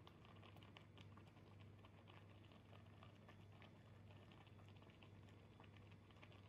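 Faint, rapid, irregular popping and crackling of water boiling around spaghetti in a pot, over a low steady hum.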